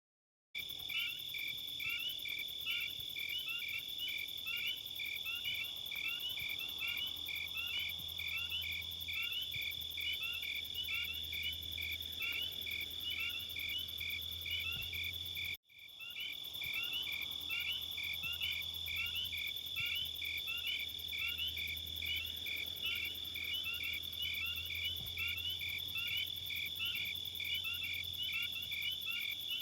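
Night insect chorus: a steady high trill with rapid, evenly repeated chirps over it. It cuts out for a moment about halfway through, then resumes unchanged.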